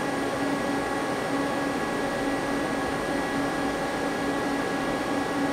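Steady whirring hum of running machinery, with several steady tones held under it.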